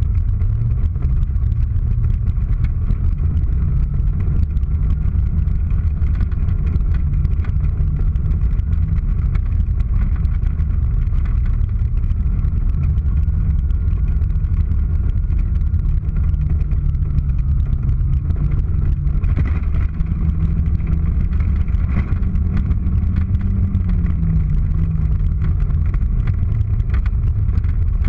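Race car's engine running hard under throttle, heard from inside the cabin, its pitch stepping and gliding up and down as the driver works the throttle and gears.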